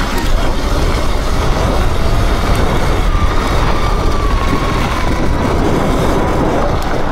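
Sur-Ron electric dirt bike being ridden: steady wind buffeting and tyre rumble, with a faint electric-motor whine that comes in about three seconds in and drifts slightly down in pitch.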